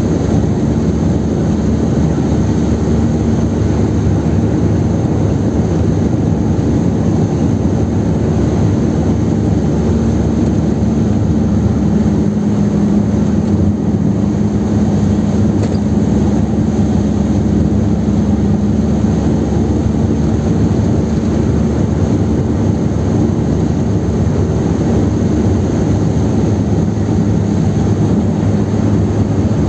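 Chevrolet Kadett 1.8's engine and tyre noise while cruising on the highway, heard from inside the car: a steady, loud running sound with a low drone that holds throughout.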